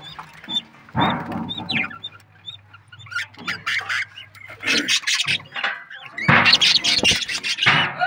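Budgerigars chirping and squawking: a run of short high chirps, then scattered harsher calls, with a louder stretch about six seconds in.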